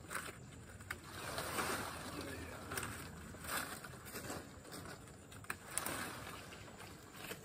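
Cacao leaves and branches rustling as they are pulled and worked by hand during pruning, in uneven swells, with a few short sharp clicks: once about a second in and twice a little past the middle.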